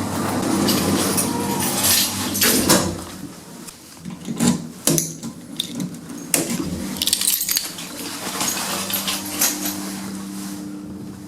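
A shop lift in use: a steady low hum with scattered clicks, knocks and rattles from the car and its doors.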